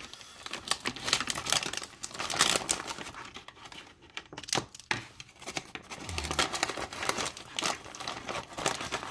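Plastic spice bag of turmeric powder crinkling and rustling as a measuring spoon is dug into it to scoop out a spoonful, a dense, irregular crackle.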